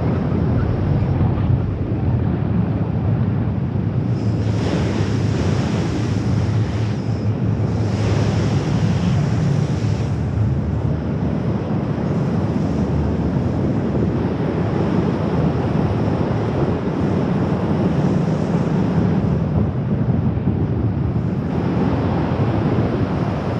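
Loud, steady rush of wind buffeting a camera microphone during wingsuit freefall flight. The hiss brightens for a few seconds at a time, about four seconds in, again around eight seconds in, and near the end.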